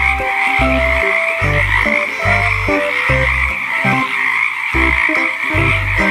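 A dense chorus of many frogs calling together, a steady high trilling din, over background music with a regular bass beat.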